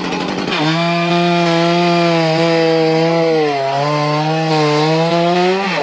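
Two-stroke chainsaw running at high revs, cutting wood. The engine note settles from about half a second in, sags for a moment midway as the chain takes load, picks back up, and begins to drop off right at the end.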